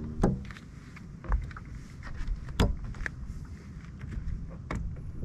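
Scattered knocks and thumps on a bass boat's front deck as gear and footsteps move about, the loudest two about a quarter second in and about two and a half seconds in, over a steady low rumble.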